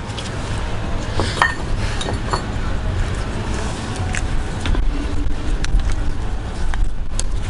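Metal shock-absorber and coilover parts clinking as they are handled and fitted by hand: a few separate sharp clinks, with a steady low rumble underneath.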